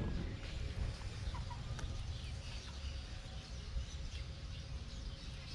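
Chickens clucking softly over a steady low rumble.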